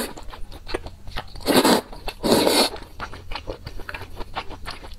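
Close-miked eating of wide noodles: two loud slurps, about a second and a half and two and a half seconds in, over steady wet chewing clicks.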